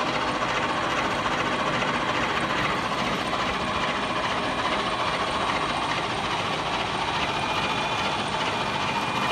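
A blade-sharpening grinder running against the reversed blades of a cutter machine, with the cutter's belt drive turning: a steady mechanical hiss with a faint steady whine, and no change.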